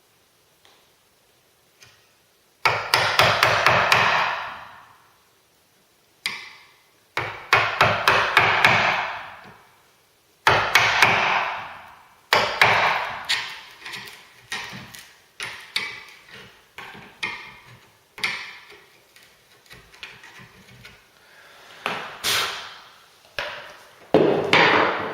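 Hammer striking a wood chisel, cutting out the strike plate recess in a wooden door frame: three quick flurries of blows in the first half, then slower single taps.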